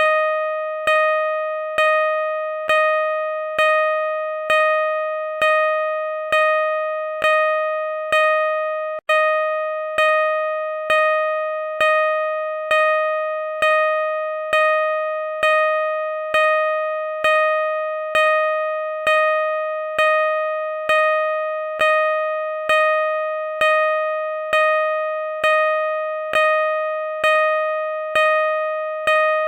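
Car parking sensor beeping at a slow, steady rate, about one beep a second; each beep is a single pitched tone that starts sharply and fades into the next. A slow rate like this is what parking sensors give while the obstacle is still some way off.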